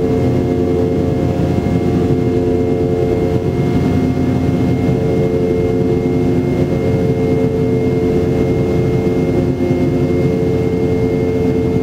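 Cabin noise of a Boeing 717-200 climbing after takeoff: its rear-mounted Rolls-Royce BR715 turbofans at climb power, heard from inside the cabin as a steady, even rumble with a hum of several held tones and a faint high whistle over it.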